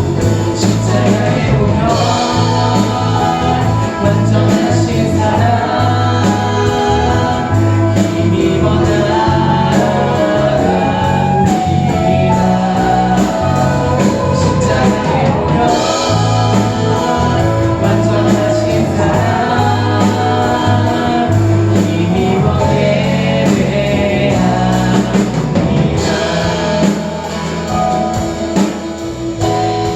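Live worship band playing a contemporary praise song with voices singing over it; the music eases down a little near the end.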